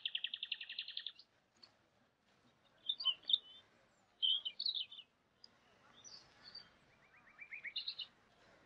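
Small birds singing: a fast chirping trill at the start, scattered chirps in the middle, and another short trill near the end.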